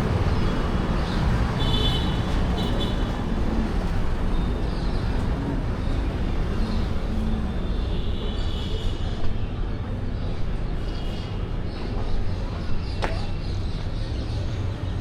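Busy city street ambience: a steady rumble of road traffic, with a few faint short high tones now and then.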